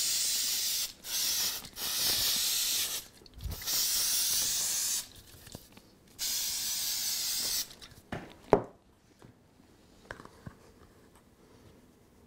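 Aerosol can of 3M Display Mount spray adhesive hissing in several bursts of one to two seconds, glue being sprayed onto a model tree's foliage. The spraying stops about two thirds of the way through and is followed by a sharp knock.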